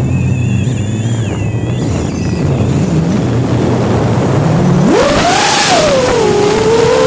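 Brushless motors and propellers of a 5-inch FPV racing quad (Racerstar 2507 1850 Kv motors) humming low at light throttle, then rising sharply to a high, wavering whine about five seconds in as the throttle is punched.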